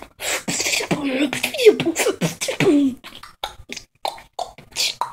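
A person beatboxing: rapid mouth-made drum hits and hissing snare-like bursts mixed with short voiced hums. The hits are dense for the first three seconds or so, then become sparser and more spaced out.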